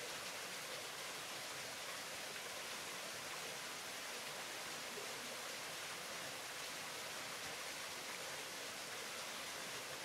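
Steady, even hiss of water still falling and running beneath the ice of a mostly frozen waterfall.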